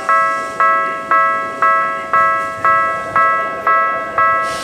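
Electronic railway warning bell ringing about twice a second, each strike fading before the next, over a steady lower tone. This is typical of a Japanese level-crossing alarm sounding at the station while the train stands at the platform. A burst of hiss comes in near the end.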